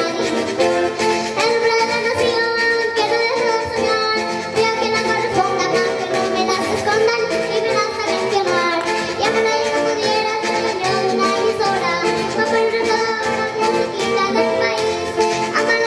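Live carranga music: a child singing over strummed Colombian string instruments, tiple and requinto.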